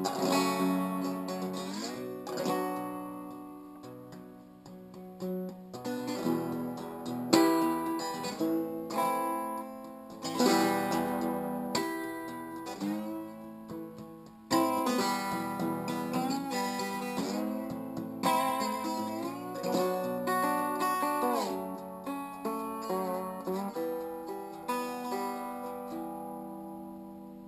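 Lap steel guitar played with a slide bar: plucked notes and chords with gliding pitch bends. Near the end the last chord rings out and fades away.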